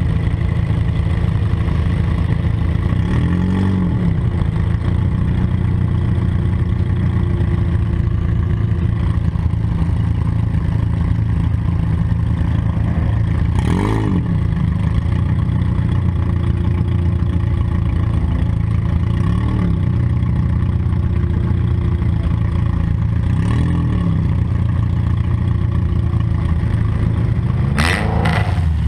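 Demolition derby car engine running loudly, heard from a camera mounted on board, revved up and back down several times. A sharp knock cuts through about halfway in and again near the end.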